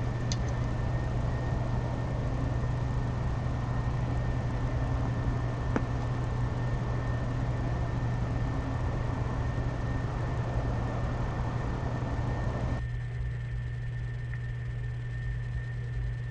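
Steady low hum and hiss of background noise picked up by an outdoor webcam microphone, with a thin steady high whine and one faint click near the middle; the hiss drops off sharply about three seconds before the end, leaving the hum and whine.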